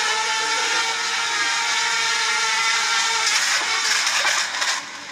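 Small quadcopter drone's propellers whining steadily while it strains under a phone tied beneath it, too heavy for it to lift. About three seconds in comes a clatter of knocks as it crashes, and the whine cuts out near the end.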